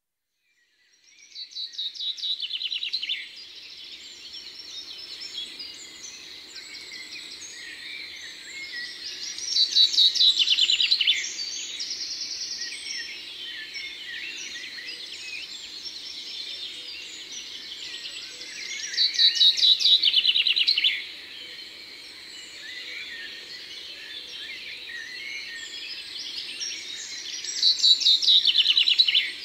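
Birdsong: a songbird sings loud, fast trilling phrases of about two seconds, four times, roughly every nine seconds, over quieter continuous chirping of other birds.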